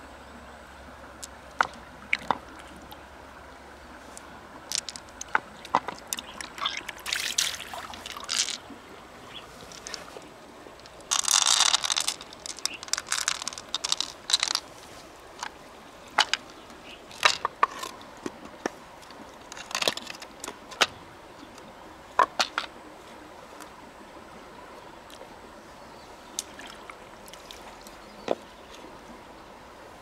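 Hands working freshwater mussel shells and pearls: scattered sharp clicks and knocks, with short bursts of splashing water, the longest about eleven seconds in.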